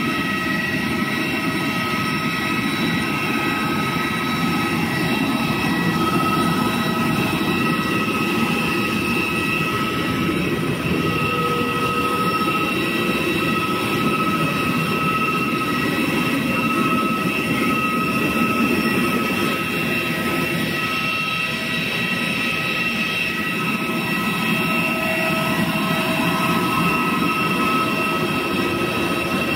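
Aircraft turbine noise on an airport apron: a steady rumble with a constant high whine of several tones, unchanging throughout.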